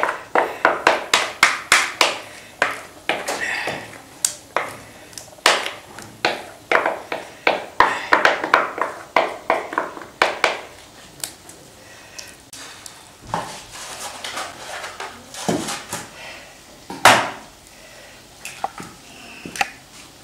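A spoon clicking and scraping against a pie dish while spreading and levelling the chard and ricotta filling: quick repeated clicks for about the first ten seconds, then a few scattered knocks, the loudest near the end.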